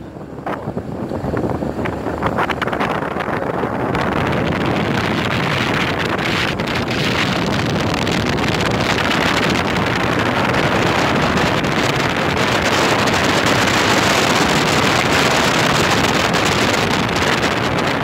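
Wind rushing over the microphone of a moving vehicle, most likely a motorbike. The rush builds over the first few seconds, then holds steady and loud.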